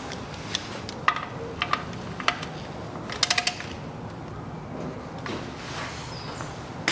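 Sharp metallic clicks and taps of hand tools working at the car's oil pan drain plug. Several single clicks come first, then a quick run of four clicks a little past halfway.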